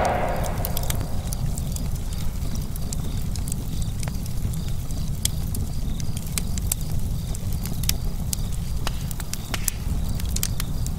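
Fire crackling: scattered sharp crackles over a steady low rumble. At the start, the tail of a deep boom fades out.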